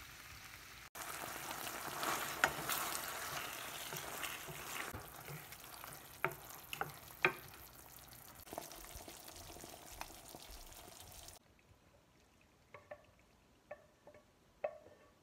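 Penne in tomato sauce sizzling in a frying pan as it is stirred with a wooden spoon, with scattered taps and scrapes of the spoon on the pan. Near the end the sizzle stops abruptly and a few light taps and scrapes follow as the pasta is scraped out onto a plate.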